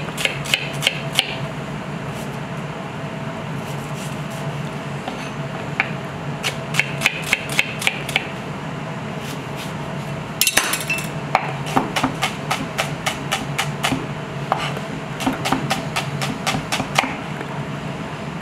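A chef's knife striking a plastic cutting board while slicing and finely dicing shallots, in quick runs of chops of up to about four a second. A steady low hum runs underneath.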